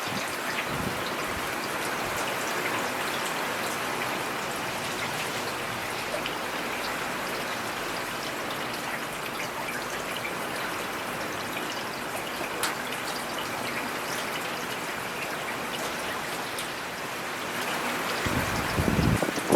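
Steady rain falling: an even hiss with scattered small drop ticks. A low rumble swells up near the end.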